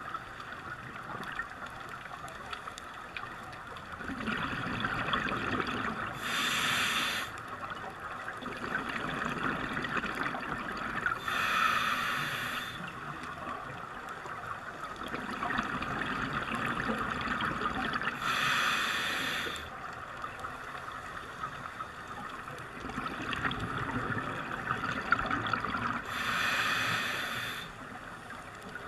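Scuba diver breathing through a regulator underwater: four short hisses of about a second and a half as air is drawn through the demand valve, alternating with longer rushing, bubbling stretches of exhaled air.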